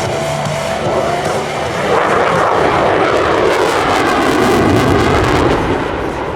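F-22 Raptor's twin Pratt & Whitney F119 jet engines as the fighter flies past: the noise swells from about two seconds in, is loudest around five seconds with a falling sweep in pitch, then fades away.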